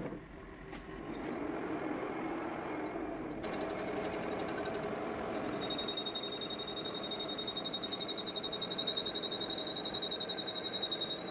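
Metal lathe running while turning a stainless steel pump shaft, with a steady mechanical hum. About three seconds in the cutting noise grows. From about halfway a thin, high, steady whistle sets in over a fast pulsing.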